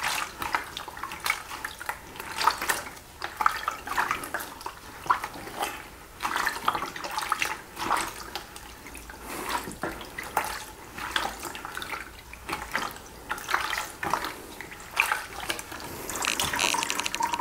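Foam dirt bike air filter squeezed and kneaded by gloved hands in a bucket of air filter cleaning solution: wet squelching and sloshing in irregular bursts. Near the end the filter is lifted and the liquid runs off it back into the bucket.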